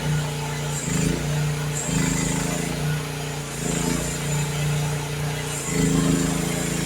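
Youtop YT15 mini excavator's engine running steadily while digging, its note swelling louder several times as the hydraulics take load, with a faint high whine coming and going.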